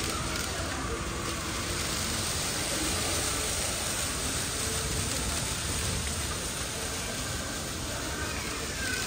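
Steady background noise of a busy shop: an even hiss with faint distant voices.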